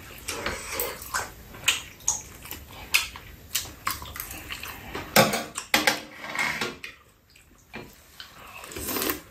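Close-up eating sounds of two people: wet chewing and lip-smacking on stir-fried rice cakes and fish cake, with small clicks of chopsticks and a spoon against bowls. There is a brief lull about seven seconds in.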